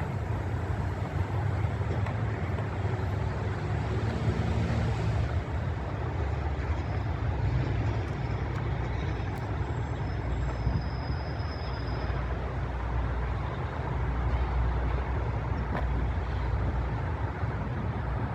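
Road traffic rumble with heavy vehicles such as buses or trucks going by, mixed with wind, and a brief high whine about eleven seconds in.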